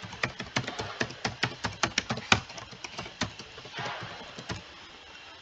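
Typing on a computer keyboard: a quick run of keystrokes that stops a little over three seconds in.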